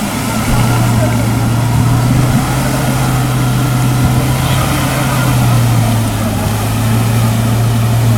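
Off-road vehicle engine held at high revs, a loud steady drone that starts about half a second in and stops near the end.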